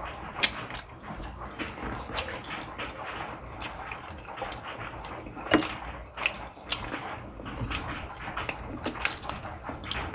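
Eating at a dinner table: scattered wet smacks and clicks of chewing, slurping noodles and utensils against dishes.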